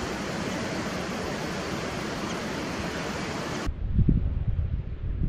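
A steady, even hiss that cuts off abruptly about three and a half seconds in, giving way to wind buffeting the microphone in low, uneven gusts.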